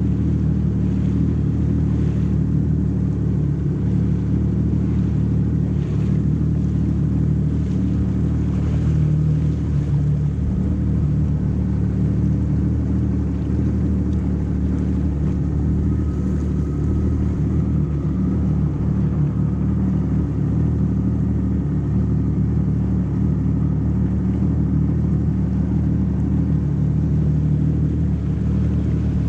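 Jet ski engine running at a steady speed, a constant low drone.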